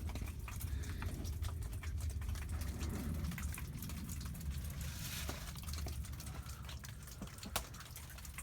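Small flowing creek trickling, with scattered ticks and crackles over a steady low rumble.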